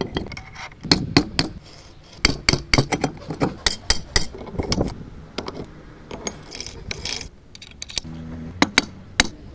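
Vespa scooter gearbox parts being fitted by hand into the aluminium engine crankcase: bunches of metallic clicks, clinks and knocks with some scraping as the gears and shaft are seated.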